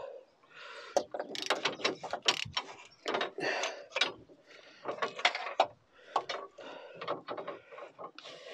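Ratchet wrench clicking in short, irregular runs, with metal clinks, as it winds a freed oxygen (lambda) sensor out of its exhaust thread.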